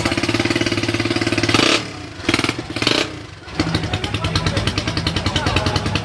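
A motorcycle engine running with an even, pulsing beat. It breaks up into short bursts for about a second and a half around the middle, then runs steadily again.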